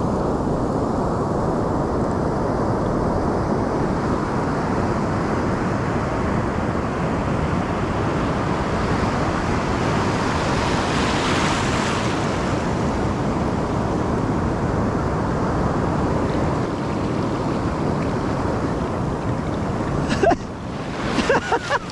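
Ocean surf washing in steadily, with one wave surging louder about halfway through. A few sharp clicks and rustles come near the end.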